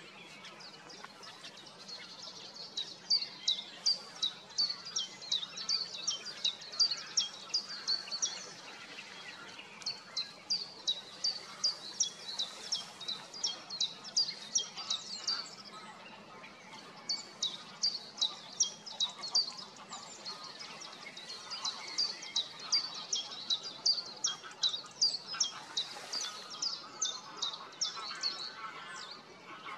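Bird chirping: a steady run of short, high, falling notes, several a second, broken by two short pauses, over a faint background hiss.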